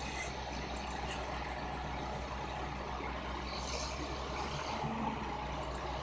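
Large Caterpillar crawler dozers working under load, their diesel engines running steadily with the noise of tracks and earth being pushed.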